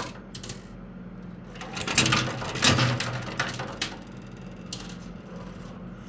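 Coin pusher arcade machine: 10-peso coins clinking and dropping in short clusters about two, three and five seconds in, over a steady low hum.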